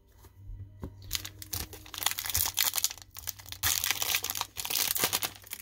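Foil wrapper of a 2020 Topps baseball card pack torn open by hand, crinkling and crackling, starting about a second in.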